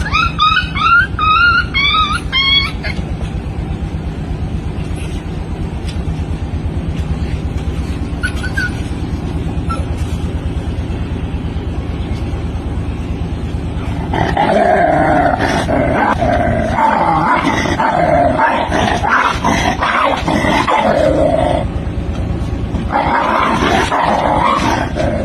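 A dog-and-monkey scuffle: rapid, high shrieking chatter in the first few seconds, then, from a little past halfway, long rough stretches of a dog growling and barking. A steady low hum runs underneath.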